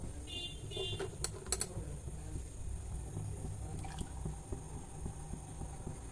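Faint water sounds from a steel pot of water with rice and potato set on the stove to boil, over a low steady hum. A short high clink comes about half a second in, and a few light clicks follow between one and one and a half seconds in.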